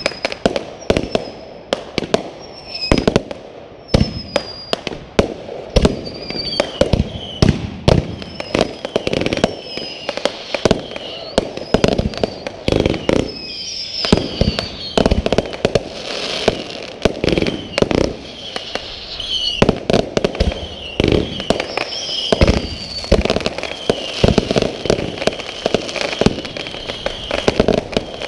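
Fireworks going off in rapid succession: many sharp bangs and booms from aerial bursts overlapping one another, with short high whistling sounds between them.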